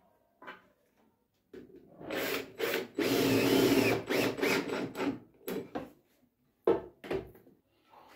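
Cordless drill driving a screw into a wooden board: short trigger bursts, one steady run of about a second, then several brief pulses as the screw seats. A couple of sharp knocks follow near the end.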